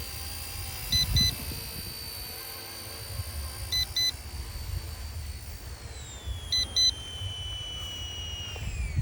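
RC Era C032 UH-1 Huey RC helicopter's electric motor and rotor whining steadily, then dropping in pitch from about six seconds in as it is throttled down to end the flight. A short double electronic beep repeats about every three seconds, over low wind rumble on the microphone.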